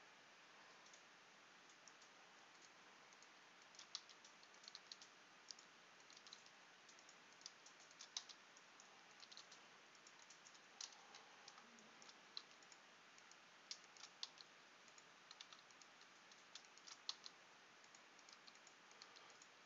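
Faint clicking of a computer keyboard and mouse: scattered, irregular clicks, more frequent from about four seconds in.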